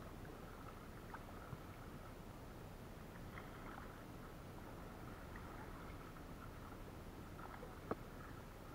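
Quiet kayak paddling: faint water splashing and dripping from the paddle, with scattered light ticks and one sharper click near the end.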